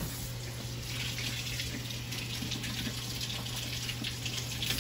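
Kitchen faucet running in a steady stream into a stainless steel sink, the water splashing over a person's mouth and face as he drinks straight from the tap.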